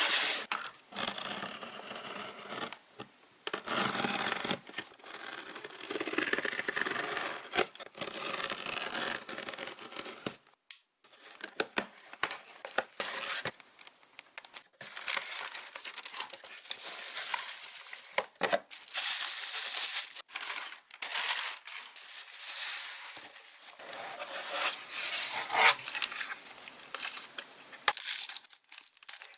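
Paper wrapping crinkling, rustling and tearing in irregular bursts, with short pauses, as a package is unwrapped by hand.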